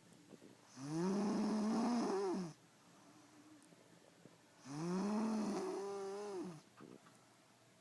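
A sleeping person snoring: two long, voiced snores about four seconds apart, each with a pitch that rises, holds, then falls away, with quiet in-breaths between them.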